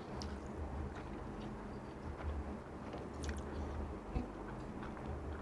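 Close-up eating sounds: a man chewing a mouthful of rice and meat, with the soft squish and small clicks of his fingers mixing rice on a plate, over a steady low hum.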